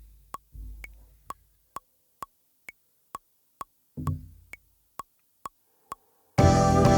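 Sampler metronome ticking at about two clicks a second, some clicks pitched higher as bar accents, with a couple of low deep bass notes from the pads that die away. Near the end a loud looped house track starts playing.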